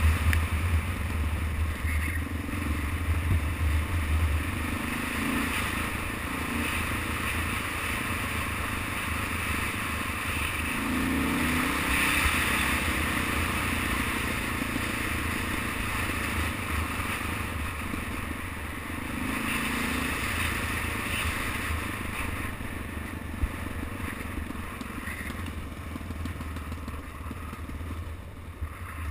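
Motorcycle engine running steadily while riding a gravel road, heard from the bike itself, with wind and road noise. The low engine drone is strongest for the first few seconds, then eases off.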